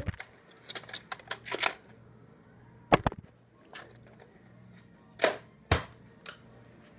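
Plastic clicks and knocks from a Nerf shell-loading blaster being handled after firing, its spent shell popping out: a loud knock at the start, a quick run of clicks about a second in, then single sharp knocks near three seconds and twice a little past five seconds.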